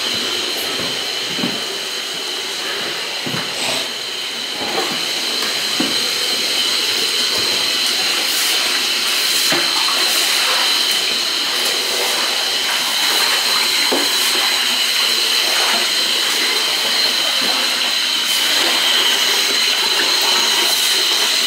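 Milwaukee M18 drum drain machine running a 7/8-inch cable down a clogged floor drain: a steady high motor whine with scattered clicks and rattles from the spinning cable.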